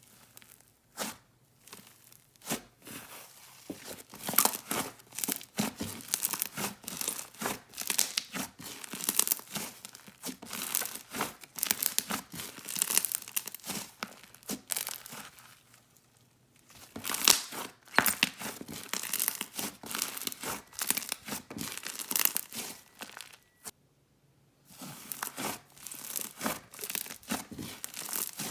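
Hands pressing, stretching and poking a DIY clay slime, making dense crackles and small bubble pops. The crackling comes in continuous runs, with two short breaks: one about halfway and one near the end. The slime is still a little dry from its dried-out clay.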